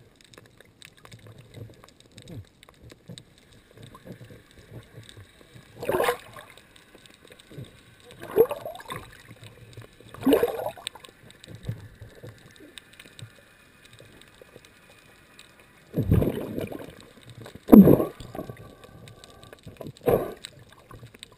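Muffled underwater sound heard through a GoPro dive housing: about six short bursts of water gurgling and swishing, some dropping in pitch, against a quiet background.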